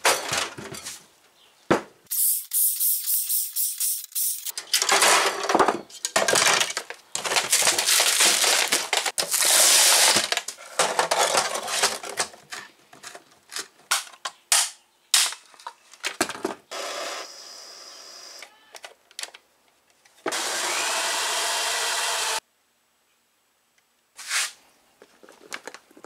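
A run of workshop handling noises as computer parts and fans are fitted into an aluminium briefcase: clattering, scraping and rustling with sharp clicks. About twenty seconds in, a steady mechanical whir lasts about two seconds and cuts off suddenly.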